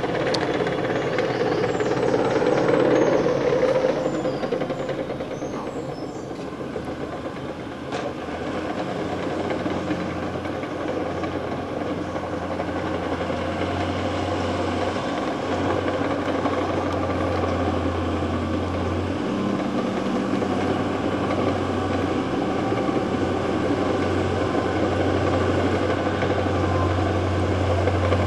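Diesel engine of a small crawler bulldozer running steadily as it works down a dirt track, with a continuous low engine note that grows gradually louder through the second half.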